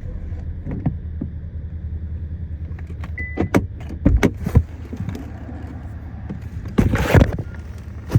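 Inside a moving car: a steady low engine and road hum, with a few sharp knocks and rattles about halfway through and a louder clatter near the end.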